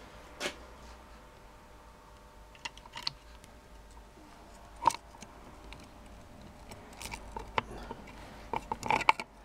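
Scattered small metallic clicks and taps of large circlip pliers and a big steel circlip against the aluminium ignition trigger housing of a BMW motorcycle as the circlip is worked into place. The loudest click comes about halfway through, and a quick run of clicks comes near the end.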